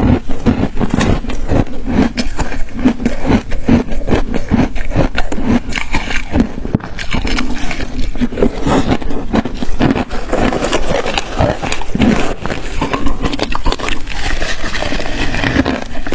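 Ice being chewed, a dense, continuous run of loud crackling crunches.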